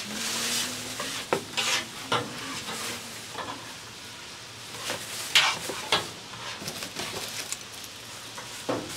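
Stir-fried rice noodles sizzling on a flat-top griddle, a steady hiss, with a metal spatula scraping and clinking on the hot plate several times; the loudest scrape comes about five seconds in.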